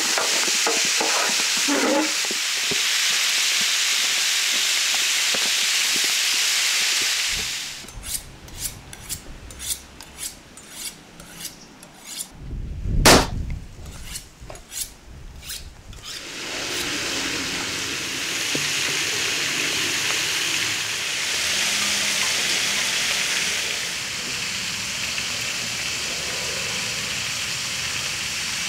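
Lamb sizzling in a hot pan. In the middle the sizzling stops and there are several seconds of separate knocks and clatter, with one loud thud about halfway through. Then the steady sizzling starts again.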